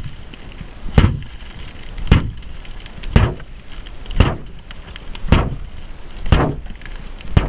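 A tactical pen's pointed tip being hammered against a car door, seven hard strikes about one a second, each with a short metallic ring, as it punctures the door panel.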